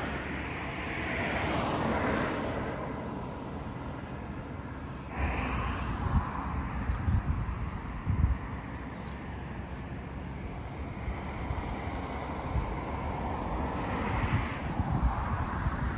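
Outdoor ambience of road traffic: a steady rush that swells as vehicles pass near the start and again near the end, with scattered low thumps in between.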